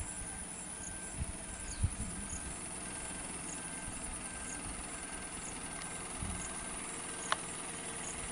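Vehicle engine idling steadily under outdoor background noise, with a faint short chirp repeating about every half second and a few soft thumps.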